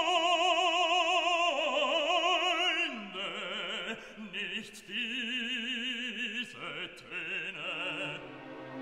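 Classical background music in operatic style: a voice sings long held notes with wide vibrato, moving to a new pitch every second or two. The higher part drops out near the end.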